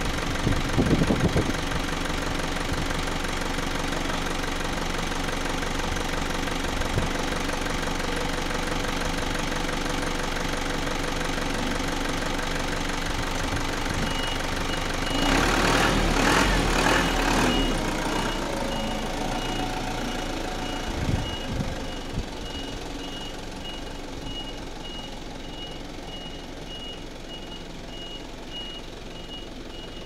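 Light flatbed truck's engine idling, then revving as the truck moves off, while its reversing alarm beeps steadily from about halfway through; the engine fades as the truck pulls away.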